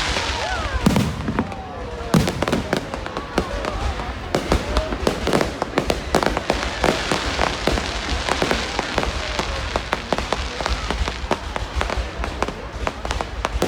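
Aerial fireworks going off in a dense, continuous run of bangs and crackles.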